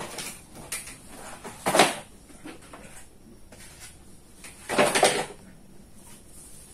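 Cardboard packaging and a cloth bag being handled and moved across a desk. There are two louder scraping, rustling noises, one about two seconds in and a longer one around five seconds in, with light knocks between them.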